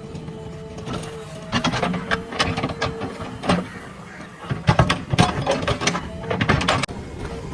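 Diesel engine of a heavy earthmoving machine running steadily, with two stretches of rapid metallic clattering and knocking, one about a second and a half in and one from about four and a half seconds to near the end.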